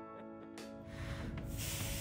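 Background music of steady held chords; about one and a half seconds in, a garden hose spray nozzle starts hissing as it rinses a fouled mesh filter basket.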